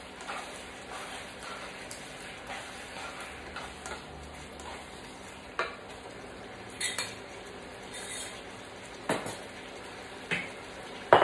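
Stir-fried chicken and vegetables sizzling steadily in a wok, with a slotted spatula stirring and knocking against the pan a few times; the sharpest knock comes near the end.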